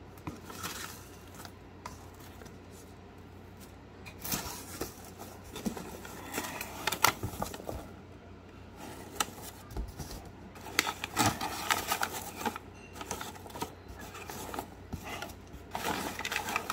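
Cardboard box flaps and a kraft paper bag rustling and crinkling as they are handled, in irregular bursts that are busiest in the second half.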